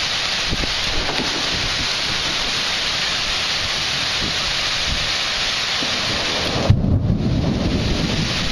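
Steady rushing hiss of thunderstorm wind through trees. About seven seconds in the hiss drops away and a low, uneven rumble takes over, likely thunder.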